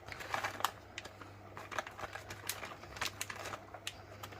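A plastic bag of grated mozzarella being crinkled and shaken empty, giving irregular sharp crackles and clicks over a steady low hum.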